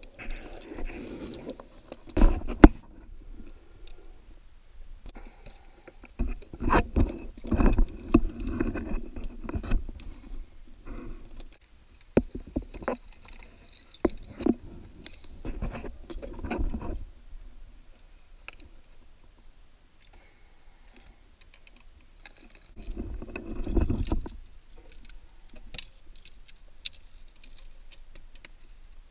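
Underwater sound heard through a diver's camera housing: muffled bursts of a scuba diver's exhaled bubbles lasting a few seconds each, with scattered clicks and knocks of gear against the housing. The sharpest knock comes about two and a half seconds in.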